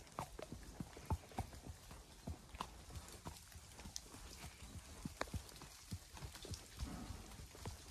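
A horse's hooves striking a wet dirt trail at a walk: soft, irregular thuds and clicks, a few a second.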